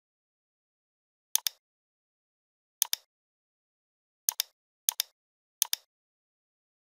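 Computer mouse clicks, five times, each a quick double tick, with dead silence between them.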